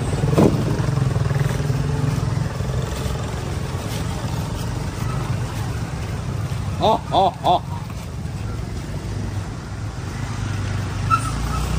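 Steady low rumble of road traffic, with three short pitched notes in quick succession about seven seconds in, each rising then falling.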